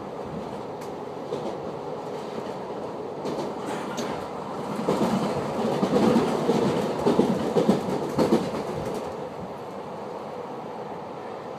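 Running noise heard from inside a Transilien VB2N double-deck commuter coach rolling along the track. A little before the middle, the wheels clatter over a run of points and rail joints with irregular knocks, louder for about four seconds, then settle back to a steady rumble.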